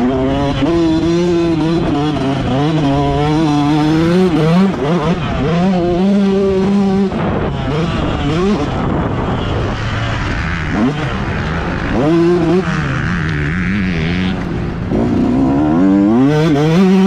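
Motocross bike engine heard up close from the onboard camera, revving up and down with the throttle as the bike is ridden around a dirt track. The pitch rises and falls over and over, with several sharp climbs as the rider gets back on the gas.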